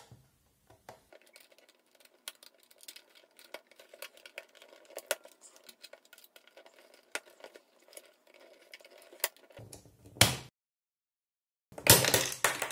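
Screwdriver turning out the screw of a plastic pivot knob on a spotlight's stand: a long run of small, irregular clicks and scrapes. A louder knock comes about ten seconds in, and a louder clatter of hard plastic near the end.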